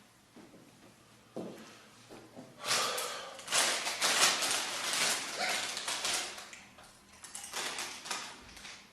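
A woman burping: a couple of short low burps, then a long, loud one starting about three seconds in, and a few shorter ones near the end.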